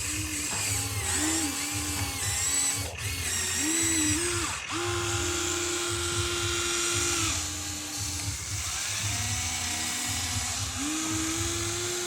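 Small electric motors and gearboxes of radio-controlled construction models whining in short runs, each pitch gliding up as a motor starts, holding, then dropping as it stops. A steady low hum runs underneath.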